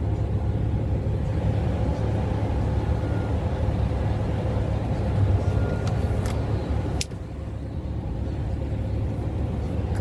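Steady low drone of a semi truck's engine and road noise heard inside the cab while cruising on the highway. A single click comes about seven seconds in, after which it is a little quieter.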